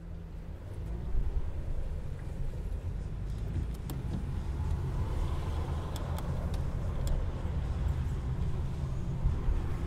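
Car driving along, a low steady rumble of engine and road noise that swells in at the start, with a few faint clicks in the middle.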